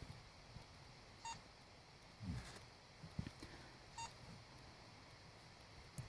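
Short electronic beeps, one about a second in and another about three seconds later, with a few soft handling knocks between them.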